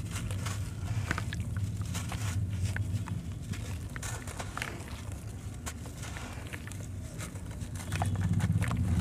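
Soaked sand-cement chunks being broken and crumbled by hand in a tub of water: irregular gritty crunches and crackles with water sloshing, over a steady low hum.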